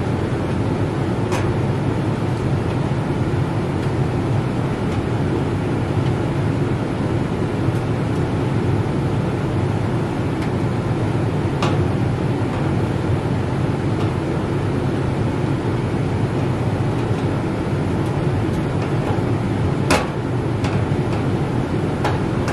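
A steady low rushing noise throughout, with a few sharp clicks as a hand tool tightens the power-cord strain-relief screw on the dryer's sheet-metal back panel; the loudest click comes near the end.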